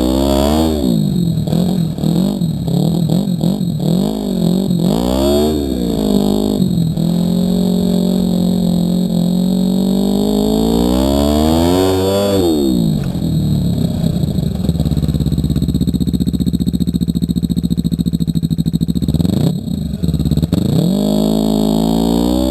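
Snowmobile engine revving up and down as the sled is ridden, its pitch rising and falling every second or two. About 7 s in it climbs steadily to high revs, drops off around 12 s, runs lower and steadier with a rapid pulsing for several seconds, then revs up again near the end.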